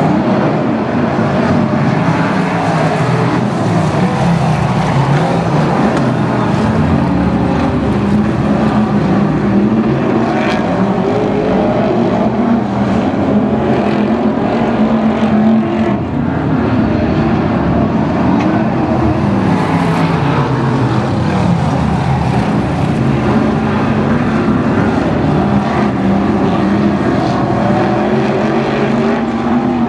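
Several BRISCA F1 stock cars' V8 engines racing, rising and falling in pitch as the cars accelerate down the straights and lift for the turns.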